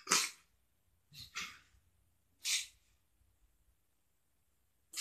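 A person's short, sharp breaths or huffs, four in all: three about a second apart and one more near the end.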